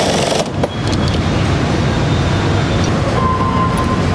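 Loud steady rumble of machinery on a rifle factory assembly floor, with a short hiss at the very start, a click about half a second in, and a faint steady whine from about three seconds in.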